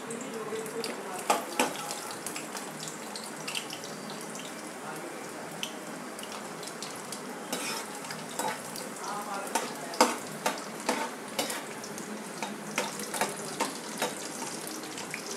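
Chopped garlic sizzling in hot mustard oil in a frying pan, a steady hiss, with a steel spoon clicking and scraping against the pan as it is stirred, the clicks coming thickest in the second half.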